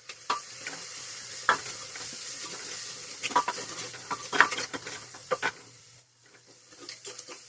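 Spiced onion-tomato paste sizzling in hot mustard oil in a pressure cooker pot while a spoon stirs it, knocking and scraping against the metal a handful of times. The sizzle drops away about six seconds in.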